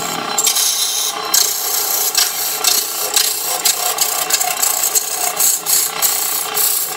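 Lathe chisel cutting into a spinning wooden workpiece: a continuous scraping hiss broken by uneven rasping pulses as chips tear off, over the steady hum of the belt-driven electric lathe.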